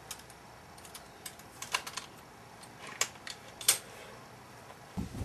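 A dozen or so irregular sharp clicks and taps, like small hard parts being handled. The two loudest come past the middle, and a low thud follows near the end.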